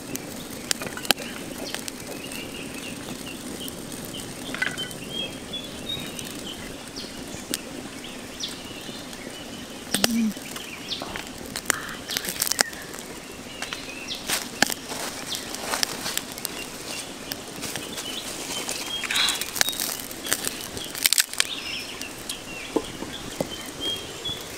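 Open wood fire crackling, with irregular sharp pops and snaps. Small birds chirp in short runs of notes in the background.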